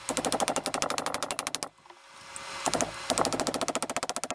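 Rapid, even mechanical clicking, more than a dozen clicks a second, like a ratchet mechanism being worked. It comes in two runs with a near-silent pause of about a second in between.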